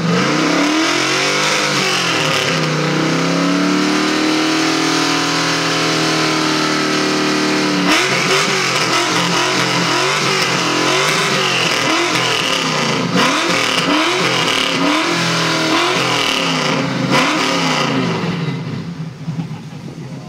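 TVR roadster's engine revved while parked: it rises, holds a high rev for about five seconds, drops sharply, then is blipped in a run of short revs before settling back toward idle near the end.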